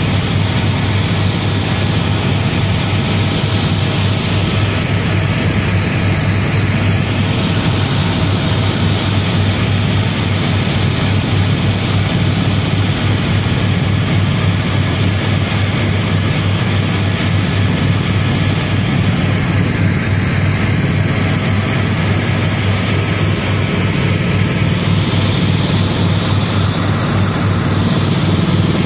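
Helicopter in flight, heard from inside the cabin: the rotor and turbine engine make a loud, steady low drone with a fast even pulsing from the blades.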